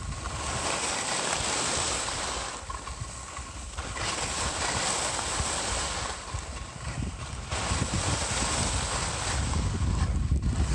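Skiing or riding down packed groomed snow: edges hissing and scraping across the surface, swelling and easing every few seconds with the turns. Wind buffets the microphone with a low rumble, strongest near the end.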